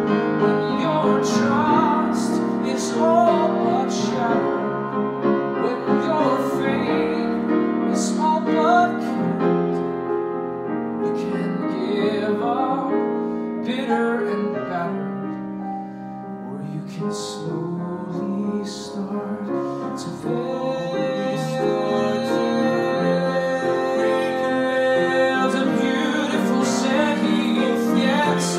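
Man singing a show tune live into a handheld microphone, accompanied by piano.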